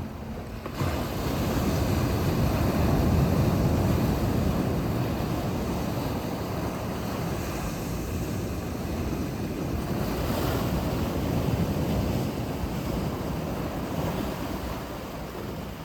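Ocean surf: a wave surges in about a second in, and the washing of the sea then rises and falls, with wind buffeting the microphone.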